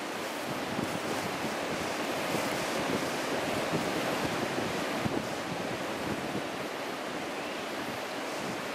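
Strong wind rushing steadily through brush and buffeting the microphone.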